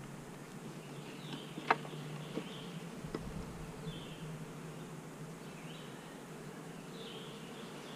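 Honeybees humming steadily from an open hive, with one sharp click about two seconds in and a couple of lighter clicks just after.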